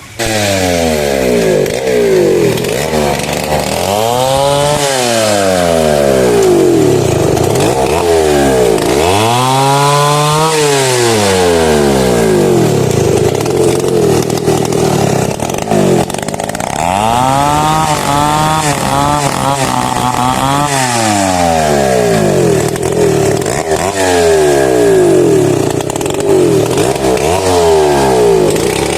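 Chainsaw cutting into mahogany wood, its engine pitch rising and falling again and again as it revs up and slows under load in the cut.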